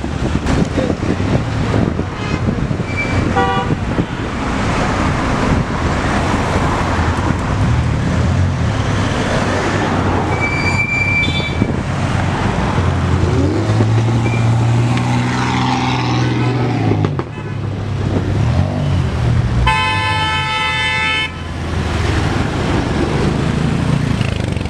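Cars driving past in slow, dense traffic with engines running and horns tooting. A few short honks come early, an engine revs up midway, and a longer horn blast of about a second and a half sounds late on.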